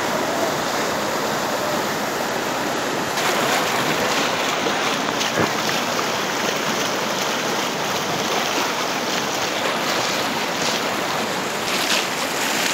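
Swollen, fast-flowing river rushing and churning over rocks: a steady, dense roar of water that grows a little brighter and louder about three seconds in.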